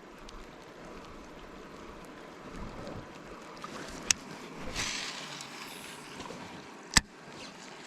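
Water moving around a kayak on a river, with two sharp knocks, one about four seconds in and one about seven, and a short hissing splash just before five seconds.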